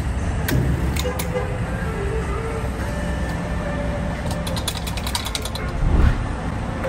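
Refuelling at a gas pump: a steady low hum with a few sharp clicks from the fuel nozzle, then a quick run of ratcheting clicks as the car's fuel cap is screwed shut, and a single thump near the end.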